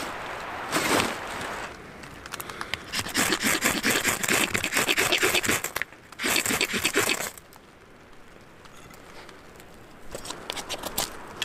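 Knife blade scraping a ferro rod in repeated quick strokes, showering sparks onto dry wood shavings, with a few faint crackles near the end as the shavings catch fire.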